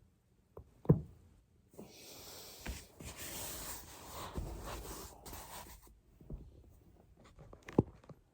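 Joints cracking while rolling on a foam roller: a loud sharp pop about a second in and another near the end, with a few smaller clicks. Between them is a few seconds of rubbing and hissing noise.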